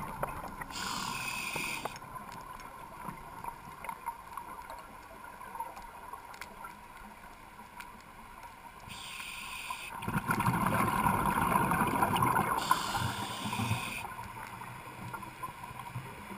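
Muffled water noise picked up by an underwater camera, with three short bursts of hiss and a louder rushing stretch a little after the middle.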